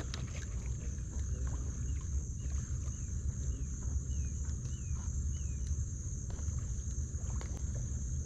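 Outdoor summer ambience: a steady high insect drone, with a bird giving a run of about eight short, quick chirps in the middle, over a low steady rumble. A sharp click right at the start.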